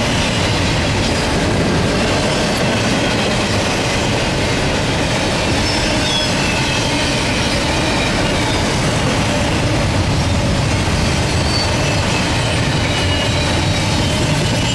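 Double-stack intermodal container cars rolling past at speed: steady loud wheel-on-rail noise, with faint high wheel squeals coming and going.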